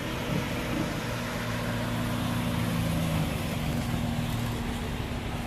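Lowered BMW sedan's engine and exhaust at low revs as it rolls slowly past, a steady low drone that grows louder as the car comes near and eases off slightly after about three seconds.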